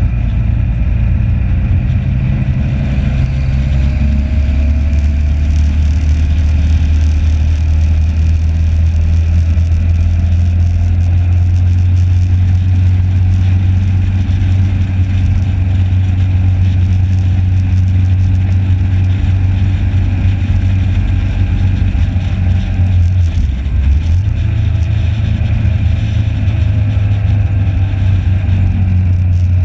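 Motorcycle engine running steadily at road speed, heard from a camera mounted on the bike. About three-quarters of the way through, the engine note dips briefly and then picks back up.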